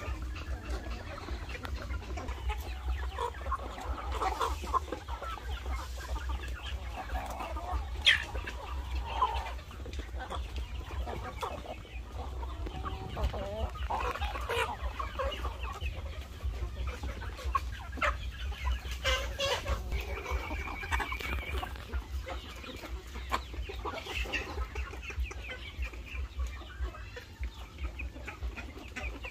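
A flock of chickens clucking and calling in scattered short calls while they feed, over a steady low rumble.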